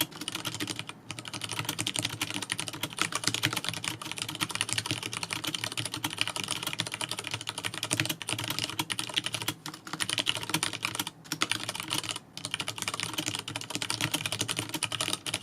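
Leopold FC660M mechanical keyboard with Cherry MX Brown switches being typed on fast: a dense, continuous stream of key clicks, broken by a few short pauses of well under a second.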